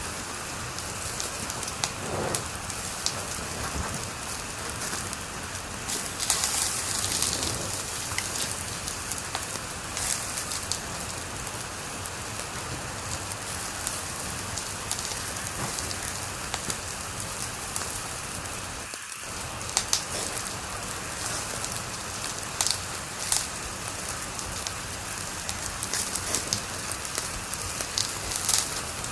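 Wood fire crackling in a fireplace: a steady hiss with many small, sharp pops and snaps scattered throughout, a few of them louder.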